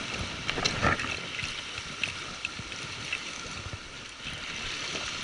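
Sea washing and splashing against rocks, a steady rushing wash with a few short clicks scattered through it.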